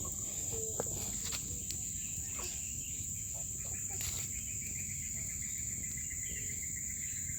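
Outdoor ambience of insects: a steady high-pitched insect drone, joined about three seconds in by a rapid, evenly pulsed chirping trill that runs almost to the end, with scattered small clicks.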